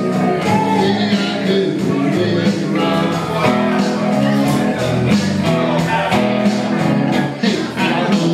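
Blues-rock band music, with an electric guitar played over a full backing band.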